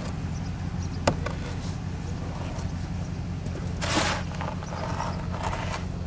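A steady low engine hum, with a sharp click about a second in and a short, loud rush of noise about four seconds in.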